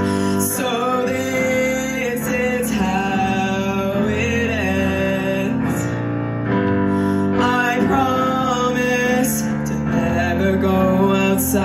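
Live song: a woman singing a slow melody into a microphone over sustained chords on a Yamaha digital piano.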